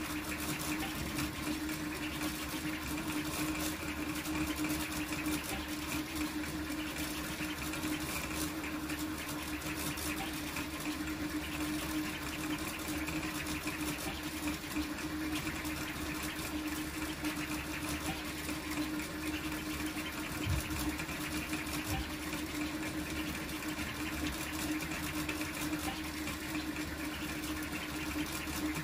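Large toolchanger 3D printer printing at high speed: its stepper motors buzz and chatter through fast back-and-forth head moves over a steady hum.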